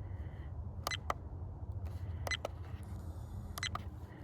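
Trail camera buttons clicking while stepping through stored footage: four sharp clicks, the last two in quick succession, over a steady low rumble.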